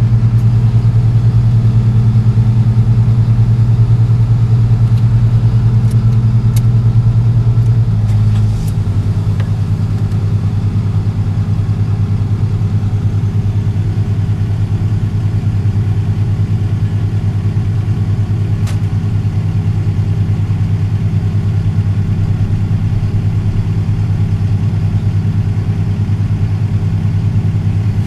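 Engine running with a steady deep hum; about eight and a half seconds in, its note changes and it drops a little in level. A few faint clicks sound over it.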